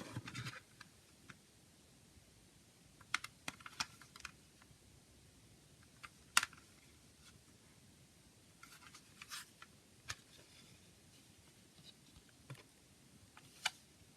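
Plastic CD case being handled and opened: scattered sharp clicks and brief scraping rustles, with one louder snap about six seconds in.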